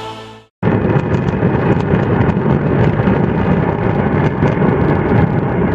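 Cumbre Vieja volcano erupting: a loud, steady low rumble with scattered crackles, starting abruptly about half a second in after music fades out.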